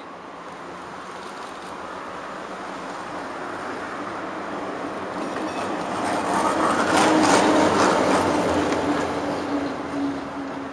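A tram passing close by: its running noise grows louder, peaks about seven seconds in with a rapid run of wheel clicks over the rails, and then fades away.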